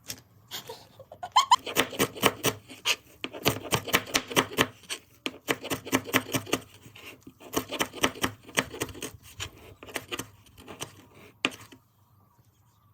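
A knife chopping quickly on a cutting board, several strokes a second in runs with short pauses, stopping about a second before the end.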